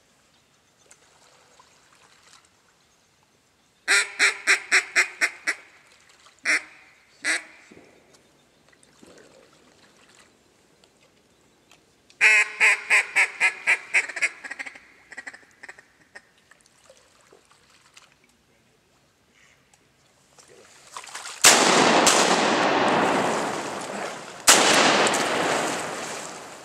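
A mallard duck call blown in two quick series of about eight descending quacks, with a couple of single quacks between them. Then two loud shotgun shots about three seconds apart, each followed by a long rush of noise.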